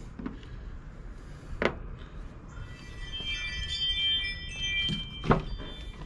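Ford F-150 door latch clicking open, then a high, steady multi-tone chime for about two seconds, the cab's warning chime with the driver's door open, and a sharp click near the end.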